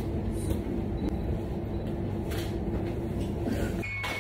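Steady low rumble of commercial laundrette washing machines and tumble dryers running, which cuts off abruptly near the end.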